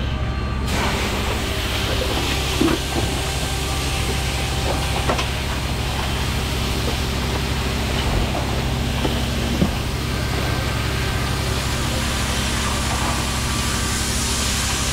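Fire hose nozzle spraying water into a burnt shed's roof: a steady hiss that starts about a second in, over the steady drone of an engine, with a few knocks.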